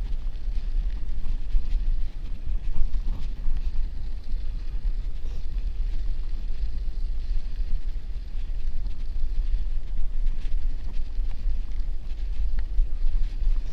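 Wind rumbling on the microphone of a moving bicycle, with the hiss of its tyres rolling over packed snow.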